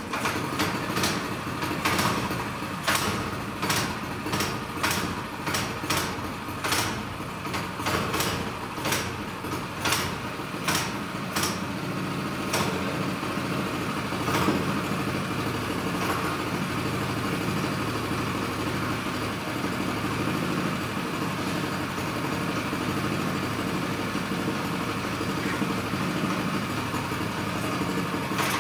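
Small engine of a home-built front-wheel-drive motorcycle, just started and running. For the first dozen seconds it surges in sharp pulses about once a second, then settles into a steady idle.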